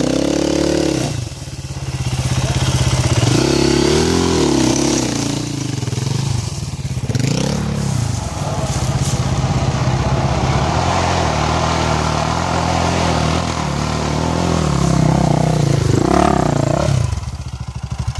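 Off-road dirt bike engine running close by, its revs rising and falling again and again as the throttle is opened and closed, with a brief drop about a second in.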